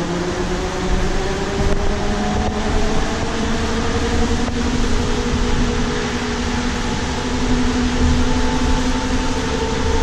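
Inside a Nova Bus LFSe electric bus on the move: the whine of its TM4 LSM280 electric drive motor, several tones slowly rising and falling in pitch with the bus's speed, over a steady low road rumble.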